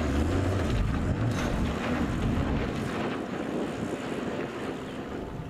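Toyota Land Cruiser 76 V8 diesel driving on a loose dirt track: low engine hum and tyre noise, with wind rushing on the microphone, growing gradually fainter.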